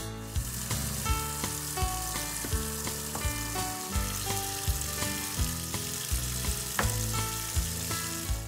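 A steady hiss of tap water running into a kitchen sink, under background music with a regular beat.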